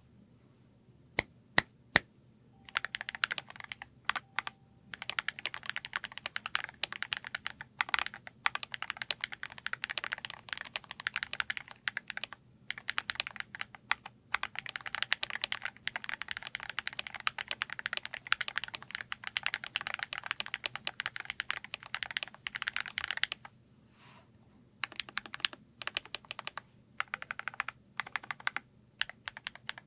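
Fast, continuous typing on a Wooting 60HE v2 keyboard with Lekker Tikken Hall-effect magnetic switches in an aluminium case: dense clacking keystrokes with a few short breaks. Three sharp, louder clicks come just before the typing starts, and near the end the typing stops for about a second and a half, then resumes.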